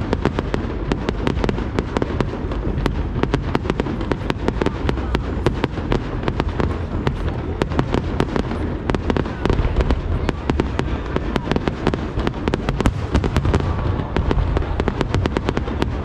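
Aerial fireworks display: shells bursting in rapid succession, with a dense crackle of many sharp reports over a continuous low rumble of booms.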